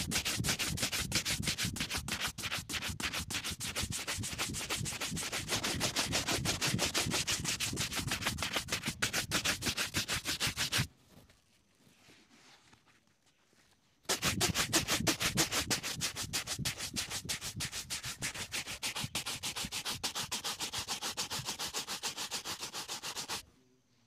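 Bristle shoe brush rubbed rapidly back and forth over a polished black leather boot in quick, even strokes, buffing it to a shine. The brushing stops for about three seconds near the middle, then starts again.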